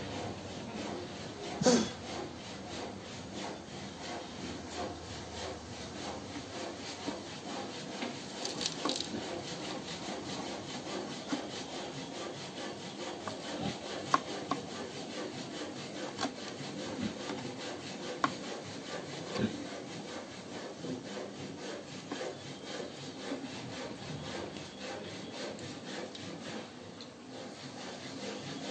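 Continuous rasping and scraping against wood, with a few sharp clicks, the loudest about two seconds in.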